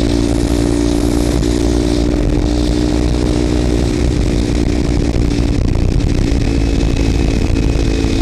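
Kawasaki Ninja 300's parallel-twin engine running at steady riding revs through a Screaming Demon slip-on exhaust with its baffle removed, giving a loud, raspy, even note.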